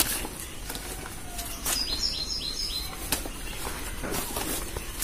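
Stiff PVC-coated nylon sheet rustling in short bursts as it is unfolded by hand. About two seconds in, a bird gives a quick run of four or five high, downward-sliding chirps.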